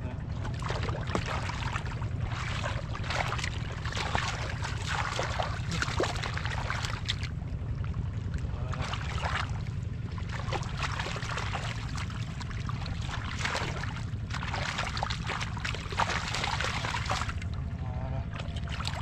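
Splashing and sloshing in shallow muddy water as a man wades and grabs fish by hand. The splashing comes in bursts of a few seconds with short pauses, over a steady low rumble.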